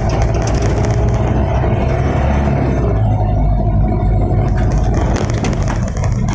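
Mitsubishi Canter light truck's diesel engine running steadily at road speed, heard inside the cab, with clicking rattles from the cab near the start and again near the end.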